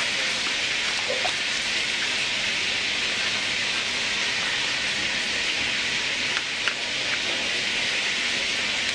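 A steady hiss of background noise in a restaurant kitchen, even and unchanging, with a couple of faint light ticks about two-thirds of the way through.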